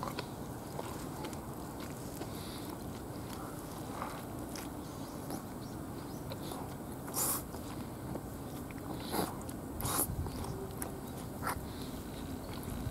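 A person eating roast chicken by hand: pulling the meat apart, biting and chewing, with a handful of short sharp clicks and smacks. The loudest come about seven and ten seconds in, over a steady low hiss.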